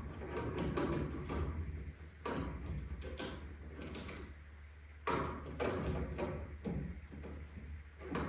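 Clicks and knocks of small parts being handled as the laser cutter's capacitor head is removed and a part is fitted back into the head, with the sharpest knock about five seconds in. A steady low hum runs underneath.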